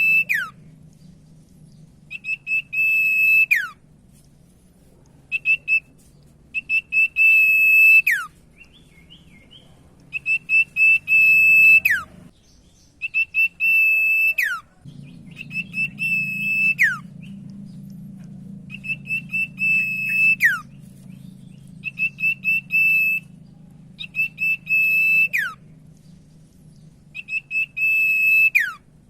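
Common iora singing, repeating a clear whistled phrase every two to three seconds: a quick run of short notes on one high pitch leading into a held note that drops steeply at the end. A faint low hum runs underneath and cuts out for a few seconds midway.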